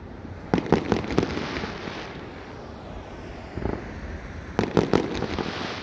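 Fireworks bursting overhead: a quick cluster of bangs about half a second in, a single bang past the middle, and another cluster of bangs near the end, with a fainter hissing crackle in between.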